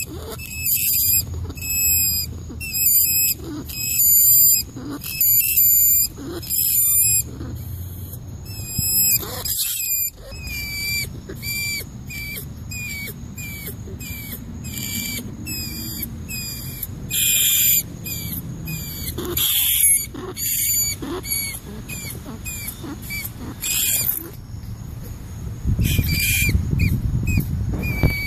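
Rats squeaking: a rapid run of short high-pitched squeaks, several a second, with louder clusters of squeals.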